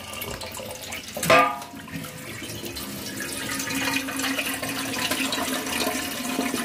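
Water running from a sink tap, first splashing onto a welded aluminium header tank, then pouring into its filler neck as the tank fills, with a steady low tone coming in partway through. One brief, louder sound about a second in.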